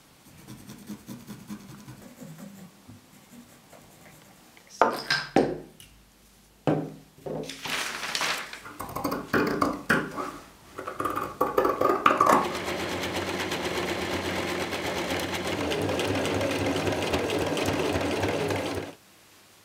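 Faint pencil scratching on paper, then a run of sharp scissor snips cutting through cotton gingham fabric. Then an electric sewing machine stitches steadily for about six seconds and stops suddenly just before the end.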